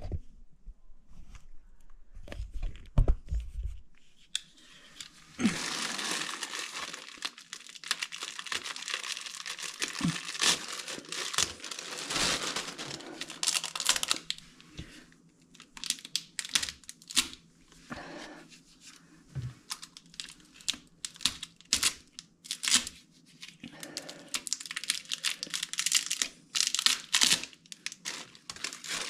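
A covering being torn off by hand and crumpled up. It comes in two long stretches of rustling and tearing, the first starting a few seconds in, with scattered sharp clicks and knocks.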